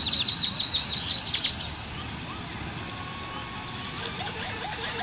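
A bird calling a rapid string of short, high chirps, about seven a second, that stops about a second and a half in, over a steady outdoor hiss.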